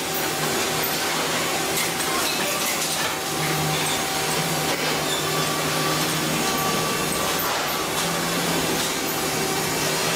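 Crane carrying a bale of compressed scrap metal on a lifting electromagnet: a steady machine noise with a low hum and faint metallic ticks.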